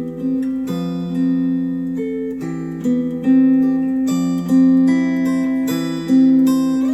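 Acoustic guitar music played back through Focal Aria 906 bookshelf speakers: chords struck about once a second, each left ringing.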